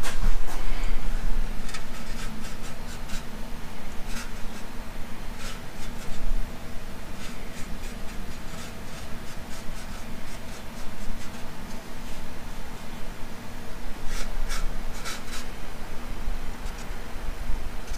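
Small brush scratching and rubbing on the sheet-metal trunk lid in short, irregular strokes with pauses, dabbing rust-preventive coating onto the bare edges of freshly drilled holes. A steady low hum runs underneath.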